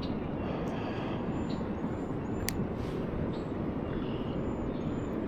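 Steady rushing of high, fast river water, an even low noise with no rise or fall. A single sharp click about two and a half seconds in.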